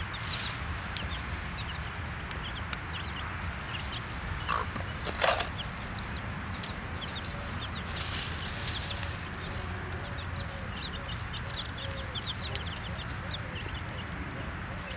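Baby chicks peeping in many short, high chirps, while a hen clucks in a low, even series through the second half. A brief louder noise comes about five seconds in.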